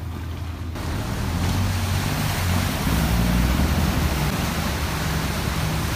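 Canal boat engine running with a steady low drone, over the rush of churning water and wind, which grows louder about a second in.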